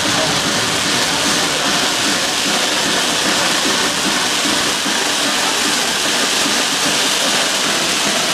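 Firework fountains (gerbs) spraying sparks with a steady, dense hiss, without bangs.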